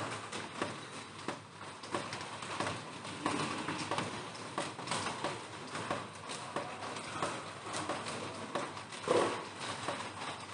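Raindrops falling on a plastic roof: a steady scatter of irregular taps and ticks over a soft hiss of rain.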